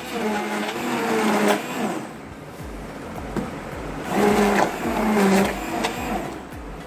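Electric immersion blender running in a pot of cooked pumpkin and vegetables, puréeing them into soup. The motor's pitch wavers as it works through the mixture, louder in the first second and a half and again from about four to five and a half seconds in.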